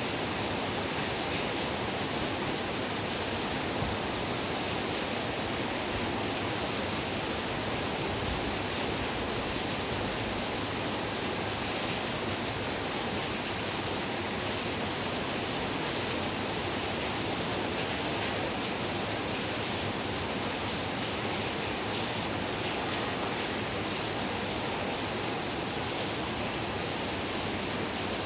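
Heavy rain pouring steadily, a dense even hiss without breaks.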